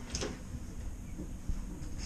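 Small cabin bathroom door being opened: a short scraping rustle near the start and a faint knock about a second and a half in, over the steady low hum of the ship.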